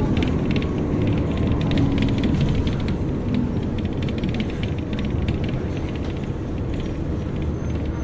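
Steady low rumble of a moving vehicle's engine and road noise heard from inside, with a fast light rattling over it.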